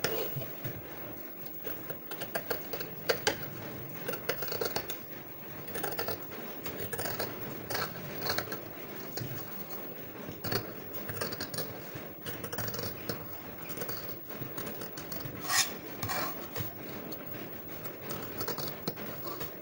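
Scissors cutting through fabric: a run of irregular snips and blade scrapes, with one sharper snip late on.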